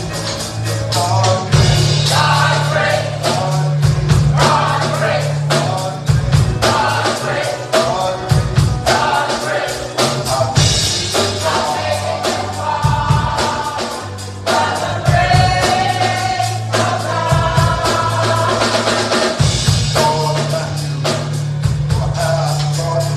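Gospel song: several voices singing over a band, with a steady drum beat and sustained bass.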